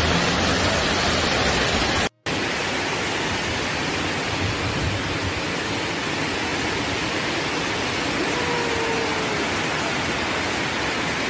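Floodwater rushing in a muddy torrent: a steady, even rush of water noise. It cuts out for a moment about two seconds in and comes back as a brighter hiss.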